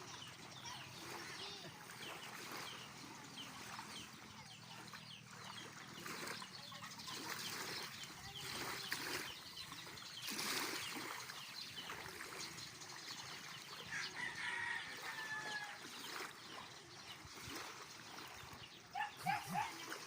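Chickens clucking and calling, with one longer drawn-out call about fourteen seconds in.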